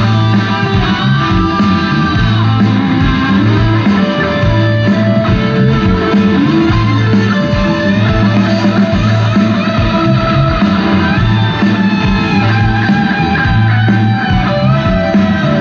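Live rock band playing through a large PA: electric guitar lines over sustained bass and a steady drum beat.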